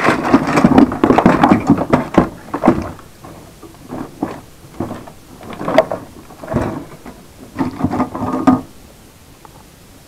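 Scrap circuit boards and electronic parts clattering and rattling against each other as a hand rummages through a cardboard box of them. The clatter is dense for the first three seconds, comes in short bursts after that, and stops about a second and a half before the end.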